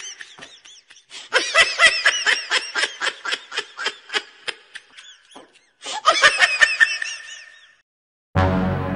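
A man's high-pitched cackling laugh in rapid pulses, breaking off twice. Music comes in near the end.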